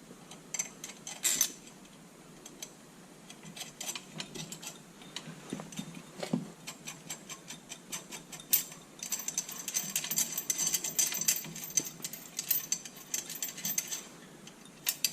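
Small steel hardware clinking and clicking as washers and nuts are fitted onto a U-bolt by hand, with scattered sharp metal clicks and a dense run of rapid clicking from about nine seconds in until shortly before the end.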